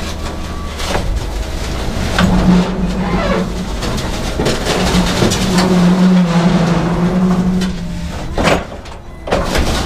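Forklift running as it backs away from a loaded trailer: a steady low hum starts about two seconds in and stops near the end, with scattered metal clanks and knocks.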